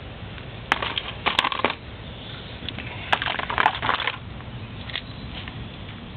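Two short bursts of crackling, clicking handling noise, each about a second long: one about a second in and another about three seconds in.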